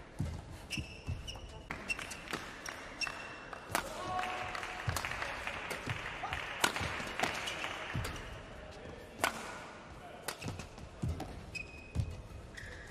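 Badminton rally: sharp cracks of rackets striking the shuttlecock, with short high squeaks of court shoes on the mat. After the point ends there is a stretch of voices in the middle, then a new rally starts with racket hits and shoe squeaks near the end.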